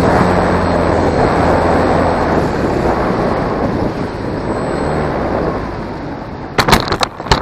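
Air rushing past a camera on a BlueWing RC flying wing as it glides low, with a low motor hum that fades over the first few seconds. About six and a half seconds in comes a short clatter of hard knocks and scraping as the plane touches down and skids on rocky ground.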